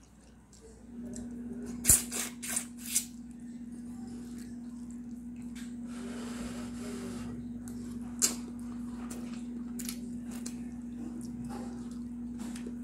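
Someone eating instant noodles with a fork: a few sharp clicks and smacks about two to three seconds in, a short hissy rush around six seconds and another click near eight seconds, over a steady low hum.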